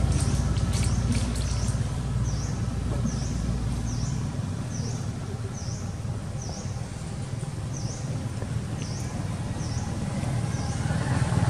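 Low engine drone of a motor vehicle, loudest at the start, fading through the middle and swelling again near the end. Over it a bird gives a short, high chirp, repeated about three times every two seconds, with a few light clicks in the first second and a half.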